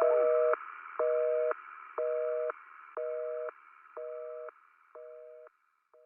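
Telephone busy signal: a steady two-note tone beeping about once a second, half a second on and half off, over a faint hiss. Each beep is quieter than the last as it fades out.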